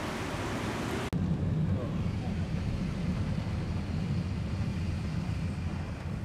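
Steady hiss of rain and wet-street traffic, then, after a sudden cut about a second in, a car's steady low rumble heard from inside the cabin in the rain.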